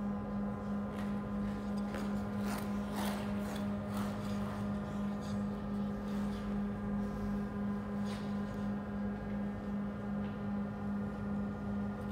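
A steady low hum with a slight regular throb, with the hiss and scrape of figure skate blades cutting the ice several times over it.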